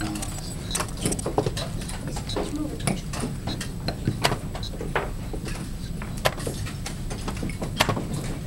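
Plastic chess pieces knocked down on a vinyl board and a chess clock slapped in quick, irregular clacks, the fast pace of blitz play, over a steady murmur of the playing hall.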